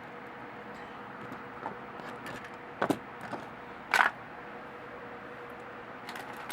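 A few light plastic clicks and knocks from a small Lego Technic model and its parts being handled, the two clearest about three and four seconds in, over a faint steady hum.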